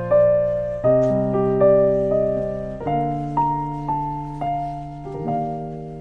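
Background piano music: slow, held chords that change about every two seconds, with a simple melody of single notes over them.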